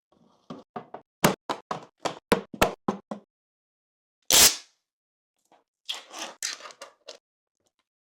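A quick run of about ten sharp taps or knocks over some two and a half seconds, then a single loud, short, hissing burst, then about a second of rustling.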